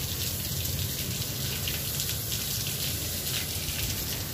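Garden hose spraying a fan of water, squeezed at the nozzle end by a thumb, splattering across the glass of solar panels: a steady hiss and patter. A low rumble runs underneath throughout.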